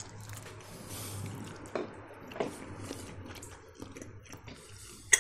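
People eating boiled pelmeni (dumplings), with soft chewing and wet mouth sounds and scattered light clicks of cutlery on plates, over a faint steady low hum.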